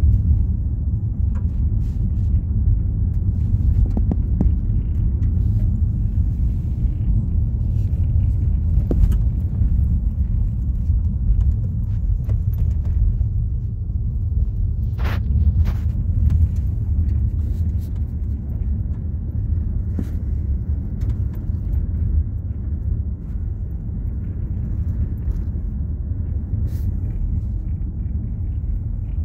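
Steady low rumble of a car driving on an unpaved dirt road, heard from inside the cabin: tyre and road noise, with a few short clicks about halfway through.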